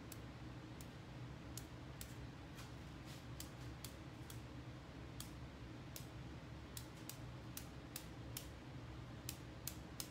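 Irregular sharp clicks, about two a second, as a paint-loaded marbling brush is tapped to sprinkle purple paint drops onto the size in a marbling tray, over a low steady hum.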